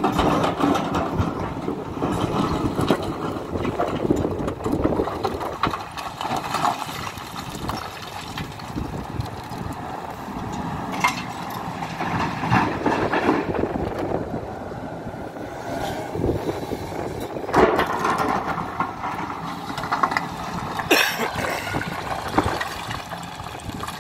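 Hidromek HMK 310LC excavator's diesel engine running under working load, with several sharp knocks of rock against steel as it digs stony ground and loads a truck.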